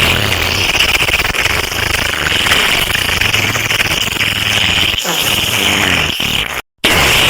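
A loud, harsh, continuous sound effect, rasping and noisy rather than tuneful, repeating as a loop. It cuts out briefly near the end and starts again.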